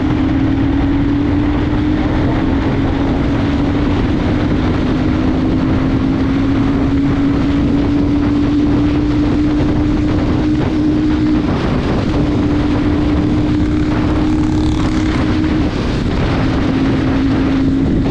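Royal Enfield Super Meteor 650's parallel-twin engine pulling hard at high speed, its note climbing slowly, under heavy wind buffeting on the microphone. The engine note dips out briefly twice in the second half.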